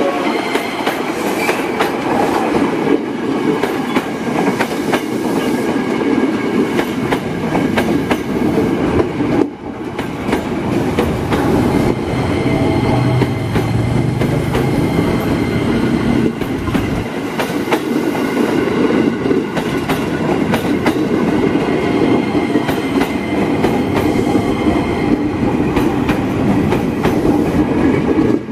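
Steel wheels and bogies of a passing train rolling close by: a steady rumble with repeated sharp clacks of wheels over the rail, and a faint high wheel squeal.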